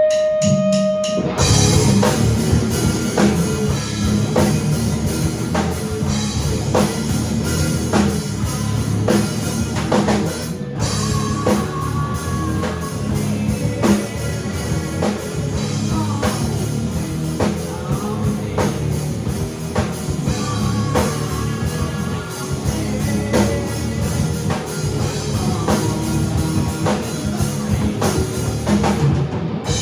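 Rock band rehearsing a song on drum kit and electric guitar. It opens with a held guitar feedback tone, and the full band comes in about a second in.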